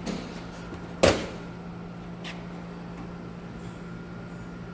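Small Husky metal tool cabinet being handled: one sharp metallic bang about a second in, with a couple of lighter clicks, over a steady hum.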